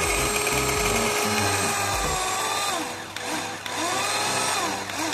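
Cordless mini chopper's small electric motor spinning its blade in an empty bowl: a steady whine that winds down about three seconds in, then spins up again for about a second and winds down near the end. It runs only while the button is held down and stops when the button is released.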